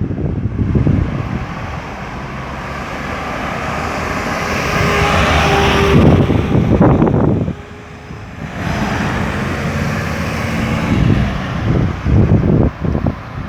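Road traffic: motor vehicles passing close with engine rumble. One vehicle swells to a peak about six seconds in and drops away, and another passes after it.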